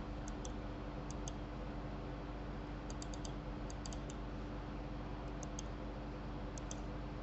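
Computer mouse button clicking: a few faint, short clicks, some singly and some in quick runs of two to four, over a steady low electrical hum.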